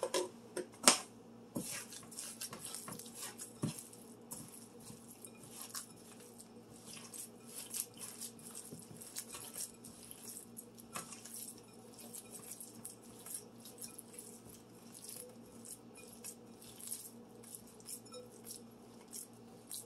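Hands mixing raw ground beef and panko in a glass bowl: soft squishing with many small clicks and taps against the glass. A couple of sharper knocks about a second in, as the lid goes back on the panko can.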